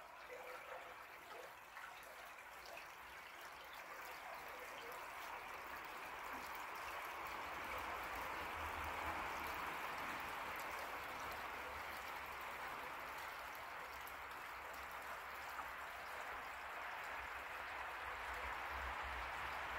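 Small forest creek flowing and trickling over logs and stones, a steady water rush that grows louder over the first several seconds.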